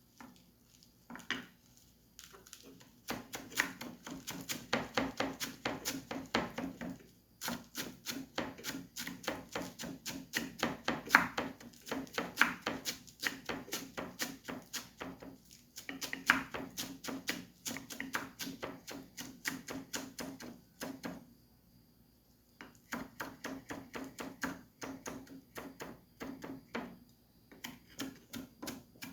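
Knife chopping chadon beni (culantro) finely on a cutting board: quick, even strokes in several runs of roughly four or five a second, with short pauses between runs.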